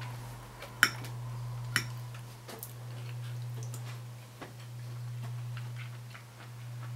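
Metal knife and fork clinking and scraping against a ceramic plate while food is cut and picked up: two sharp clinks about a second apart near the start, then lighter taps and scrapes, over a steady low hum.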